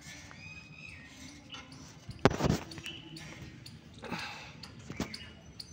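A child's footsteps on hollow playground slide steps: one loud, deep thump about two seconds in, then two lighter knocks.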